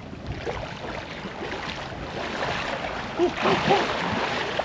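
Lake water splashing and sloshing as swimmers move through it, growing louder after about a second and a half.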